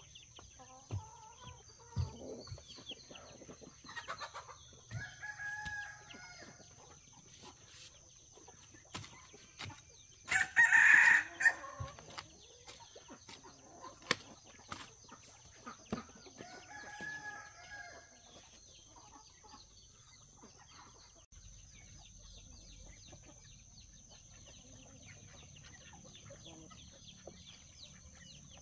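Chickens clucking now and then, with a rooster crowing once, loudly, about a third of the way in.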